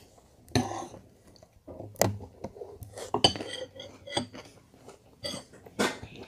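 Metal spoon clinking and scraping against a glass cereal bowl as cereal and milk are scooped, about six sharp clinks with a short ring, a second or so apart.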